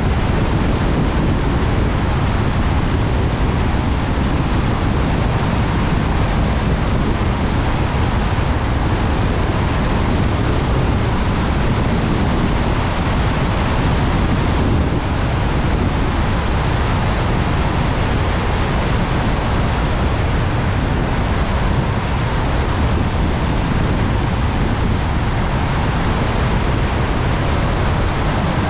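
Steady rushing noise of a car driving in the rain, mostly tyres on wet pavement with wind over the car, unbroken and even throughout.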